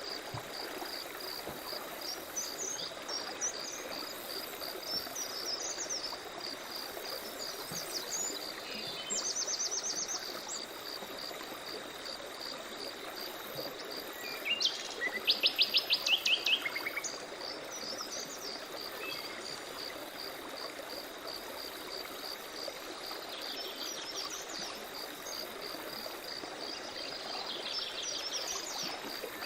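Birds calling in short phrases of quick repeated notes, loudest about halfway through, over a steady, evenly pulsing insect trill and the hiss of running stream water.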